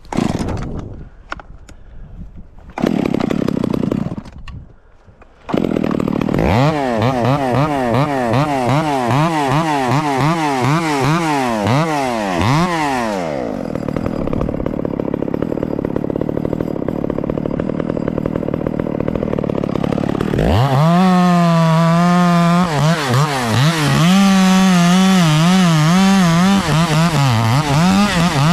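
Echo 670 two-stroke chainsaw that starts up about five seconds in after a few knocks. It revs up and down repeatedly, runs with a duller, steadier sound for several seconds, then holds at high speed with a wavering pitch.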